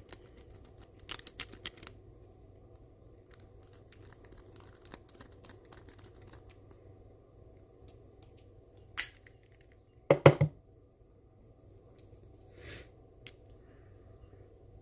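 Lock picks raking locks: scattered light metallic scratching and clicking in short bursts, with a sharp click about nine seconds in and a louder clatter just after ten seconds.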